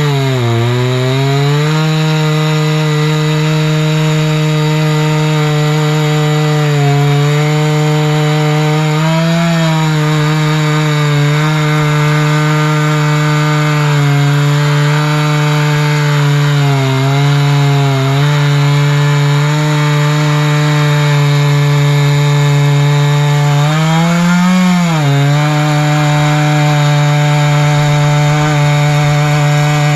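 Chainsaw running hard under load, ripping lengthwise through a tamarack log on a milling pass with its freshly reprofiled chain. The engine pitch holds steady, with a few brief dips as the cut bogs it and a short rise and fall about three-quarters of the way through.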